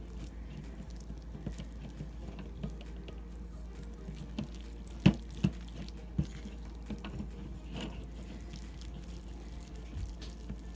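Toy slime being squished and kneaded by hand on a plate, making soft irregular wet squelches and little popping clicks, with a few sharper snaps about five and six seconds in.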